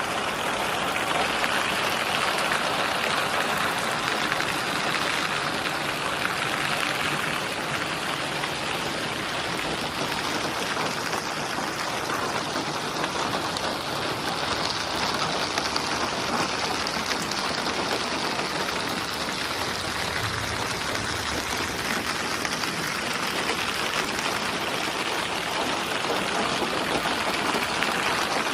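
Steady rain falling, an even dense hiss of drops with no let-up.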